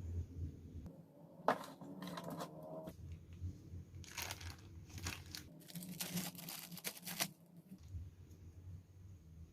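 Crinkling, rustling handling noises in three short bursts, over a low hum.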